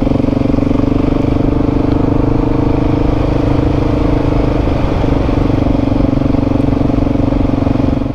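Motorcycle engine idling steadily at a constant pitch, close by, cutting off abruptly near the end.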